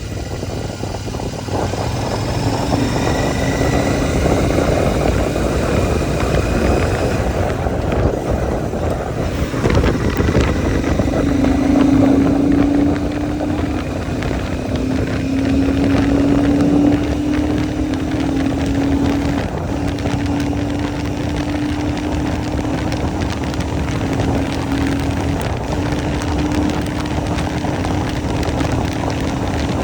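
Royal Enfield Shotgun 650's 648 cc parallel-twin engine pulling steadily at high road speed, heavy wind noise on the microphone, the engine note slowly climbing and briefly breaking off a couple of times.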